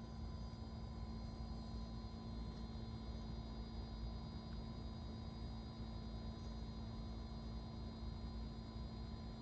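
2022 Fujitsu Halcyon ductless mini-split heat pump outdoor unit running through its defrost cycle: a steady hum with one clear low tone over a low rumble.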